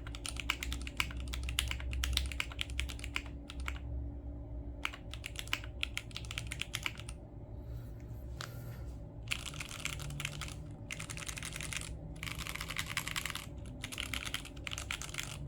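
Fast typing on a Geonworks F1-8X mechanical keyboard with stock Gateron X switches and CRP R4 keycaps, the keystrokes coming in dense runs with a short pause about midway. The stock switch springs give a high ping.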